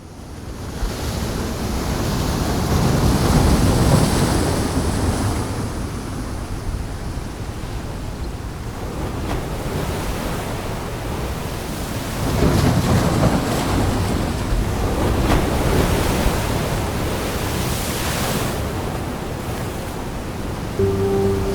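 Ocean surf with wind: a steady wash of noise that fades in at the start and swells and ebbs as waves break, loudest a few seconds in and again around two-thirds through. A low steady tone comes in right at the end.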